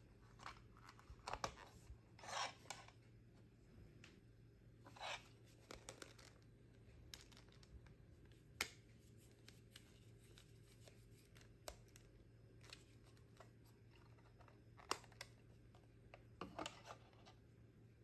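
Plastic case of a wireless PIR motion sensor being snapped shut and its case screw driven in with a small screwdriver: a few short scraping rubs early, then scattered sharp plastic clicks, all quiet.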